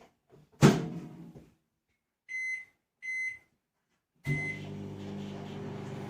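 Microwave oven: the door shuts with a sharp knock, two short high beeps sound as the buttons are pressed, and a third beep starts it. It then runs with a steady hum, cooking the bowl pizza for one minute.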